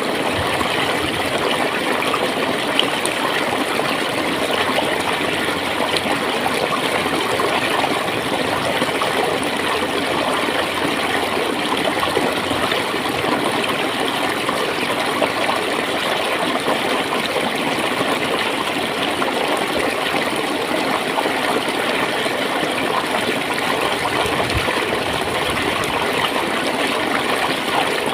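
Clear stream water flowing and gurgling steadily.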